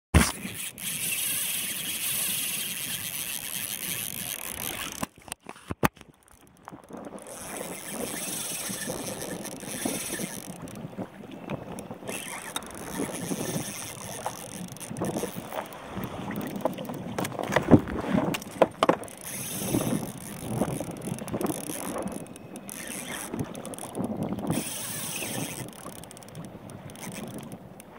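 Wind buffeting the microphone over water lapping against a kayak's hull at sea, with a few sharper knocks a little past halfway. The sound cuts out briefly about five seconds in.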